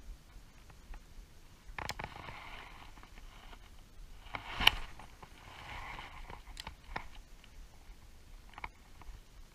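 Spinning rod and reel being worked through a cast: scattered clicks and handling rustles, with one sharp snap about halfway through as the rod is swung.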